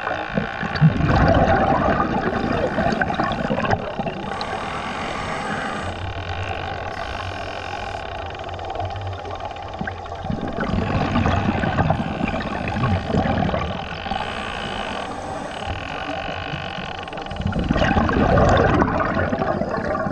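Scuba diver breathing on a regulator, heard underwater: three long bursts of exhaled bubbles several seconds apart, with quieter hissing and a steady hum in between.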